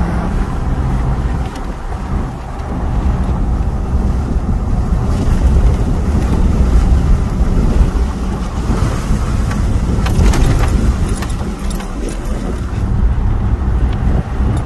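Steady road and engine noise inside the cab of a moving pickup truck, with a few sharp clicks and rattles about nine to eleven seconds in.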